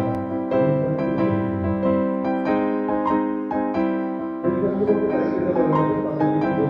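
Background piano music, notes struck in a steady flowing run over held lower notes.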